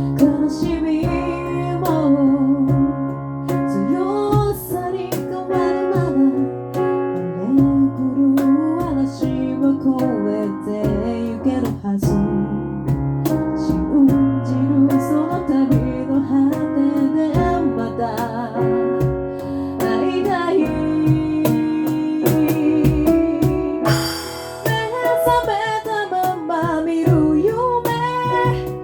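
A cappella vocal group singing in layered harmony, with sharp percussive hits keeping a steady beat under the voices.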